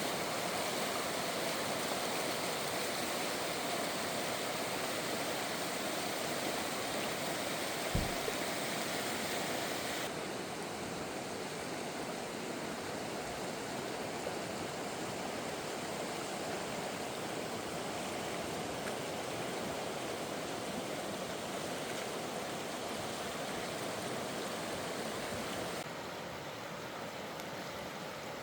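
Stream water rushing steadily, with a brief low thump about eight seconds in.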